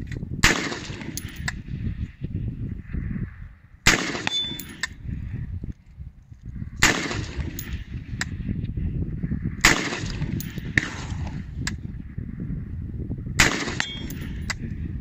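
Colt Commando short-barrelled 5.56 mm AR-15 carbine fired in slow single shots, five cracks about three seconds apart. A fainter crack follows about a second after most shots.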